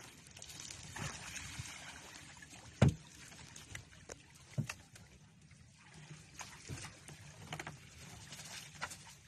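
Fishing net running out over the side of a boat into the water, with a rustling wash of water and net. A sharp knock comes about three seconds in, and a few softer knocks follow.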